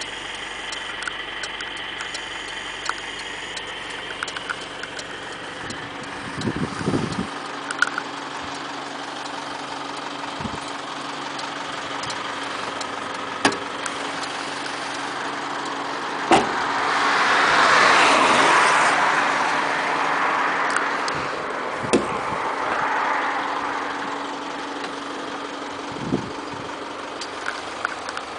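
Isuzu D-Max diesel engine idling steadily, with several sharp clicks and knocks. A broad rushing noise swells and fades over about four seconds past the middle.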